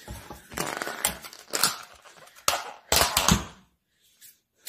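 Takeout food packaging being handled and opened: a run of short rustling, crinkling bursts that stop about three and a half seconds in.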